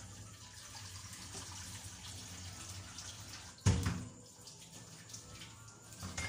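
Steady hiss of gas stove burners and a malunggay omelet cooking under a glass lid, broken by a sharp knock about three and a half seconds in and a lighter one near the end.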